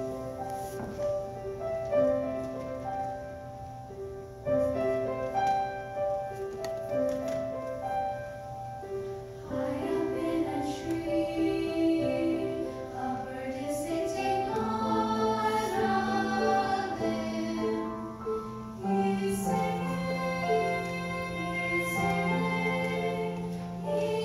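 Youth choir of children singing with piano accompaniment. The singing voices grow fuller about ten seconds in.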